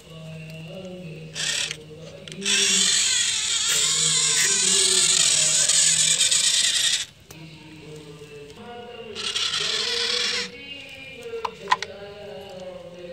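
Small electric gear motor of a homemade toy tractor whirring in bursts: a long stretch of about four seconds starting a couple of seconds in, a shorter one later, and a brief one near the start. Music plays underneath throughout.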